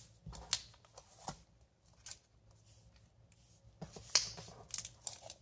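Comic books being handled and laid out: a handful of short rustles and taps, the loudest about four seconds in.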